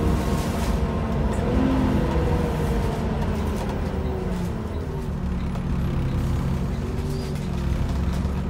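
Volvo B7TL double-decker bus's six-cylinder diesel engine running under way, heard from inside the passenger saloon. The engine note falls about halfway through, then holds steady.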